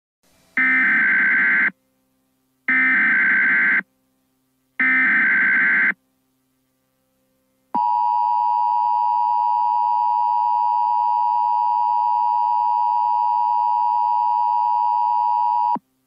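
Emergency Alert System tornado warning: three one-second SAME header data bursts with short gaps between them, then the steady two-tone EAS attention signal held for about eight seconds before it cuts off.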